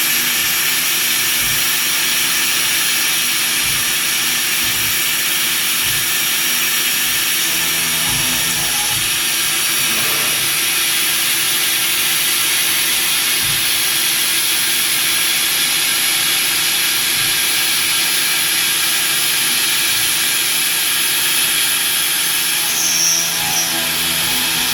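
CNC machine's spindle running steadily while machining a mould: an even high hiss with steady whining tones. A short high chirp near the end.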